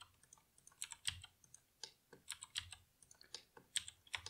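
Faint, irregular clicking of computer keyboard keys being pressed.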